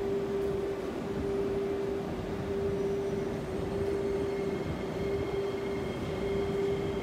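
Singapore MRT train running on the track, a steady rumble with a low hum, and a faint higher whine joining about halfway through.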